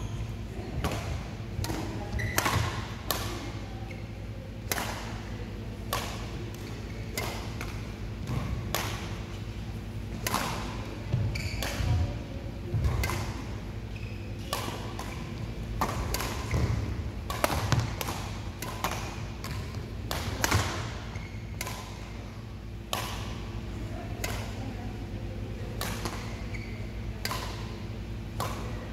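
Badminton rackets striking a shuttlecock in a rally: sharp smacks at uneven spacing, about one a second, with some low thuds of feet landing on the court mat, over a steady low hum in the hall.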